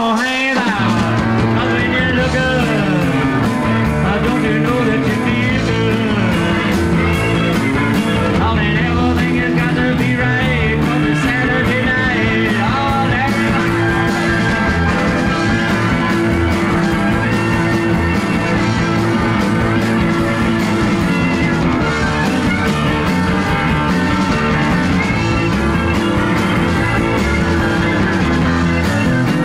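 Live country-rock band playing an instrumental stretch of a song: guitars over bass and drums with a steady beat.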